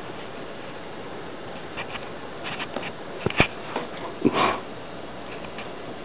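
A cat playing on carpet: scattered soft rustles and scrapes, one sharp knock about three and a half seconds in, and a short scuffling burst a second later, over a steady hiss.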